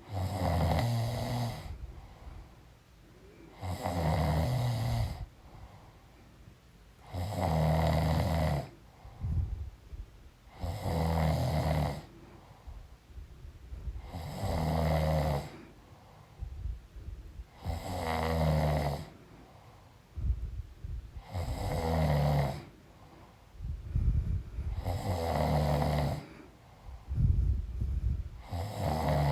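A woman snoring in her sleep: nine loud, low snores at an even pace, about one every three and a half seconds, each lasting about a second and a half, with quieter breathing between them.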